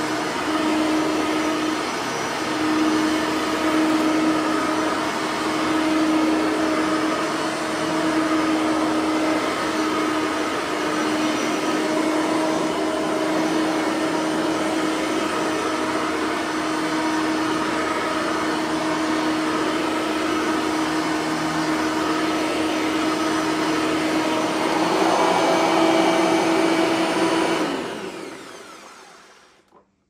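Bissell 3510 bagged upright vacuum cleaner with a 9-amp motor running steadily on the low carpet-height setting, its brush roller bearings freshly greased so there is no scraping. About two seconds before the end it is switched off and its motor winds down.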